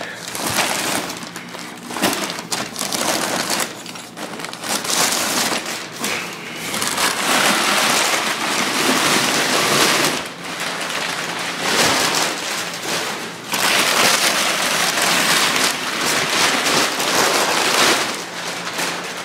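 Crumpled brown packing paper and bubble wrap rustling and crinkling continuously as a hand rummages through them in a cardboard box, in uneven surges.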